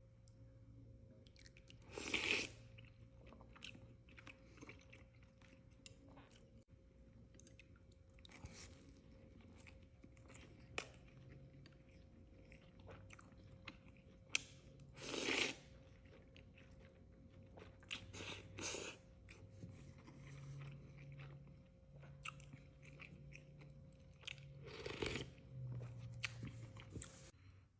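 Close-miked eating sounds of a person eating Lao chicken noodle soup: quiet chewing throughout, with about four short, louder mouthfuls.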